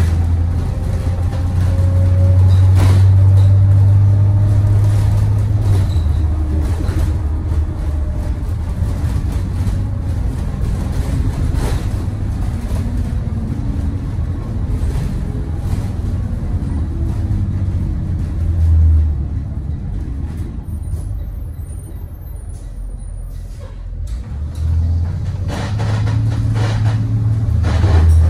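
Thomas Saf-T-Liner C2 school bus engine and drivetrain droning, heard from the back seat inside the cabin, with road noise and rattles from the body. The drone eases and goes quieter for a few seconds past the middle, then builds again near the end.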